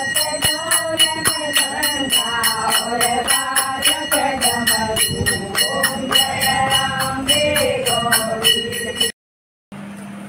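Women singing an aarti hymn while a hand bell rings rapidly, about three strikes a second, with hand-clapping in time. It cuts off abruptly about nine seconds in, leaving a low steady hum.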